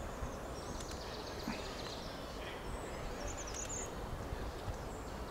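Steady outdoor background noise by a stream, with a short run of faint, high bird chirps about three seconds in.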